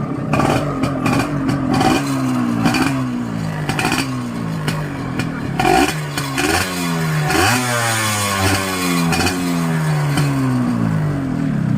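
Yamaha 125Z/ZR two-stroke single-cylinder motorcycle engine running and being blipped repeatedly, the revs rising and falling back again and again, with one bigger rise about seven seconds in. It runs normally on its repaired CDI ignition unit.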